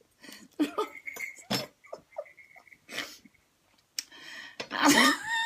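A woman's breathless, wordless laughter: short gasps, sniffs and wheezes, with a loud burst of laughing near the end.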